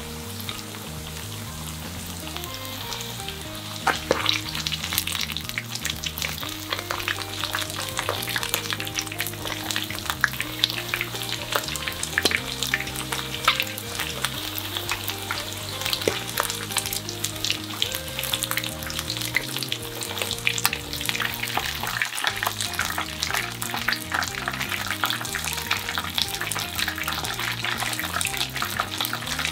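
Potato-starch-coated chicken karaage frying in oil in a frying pan: steady sizzling with dense crackling that grows busier and sharper about four seconds in. A soft background music track plays underneath.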